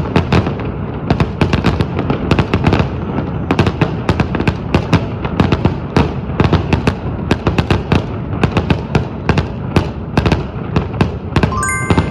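Fireworks in a rapid barrage, several loud bangs a second over a continuous rumble.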